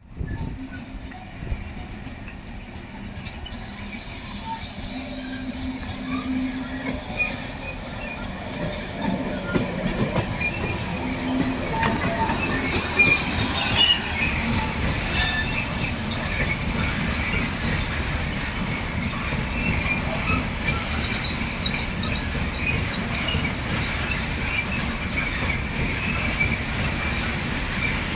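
A train running on rails, growing louder over the first half and then holding steady, with scattered short high wheel squeals and a few clicks from the wheels.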